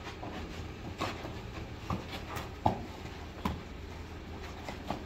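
Scattered thuds and slaps of taekwondo free sparring: padded kicks and punches landing on foam sparring gear and feet on the carpeted floor. About seven separate hits, the loudest a little past halfway.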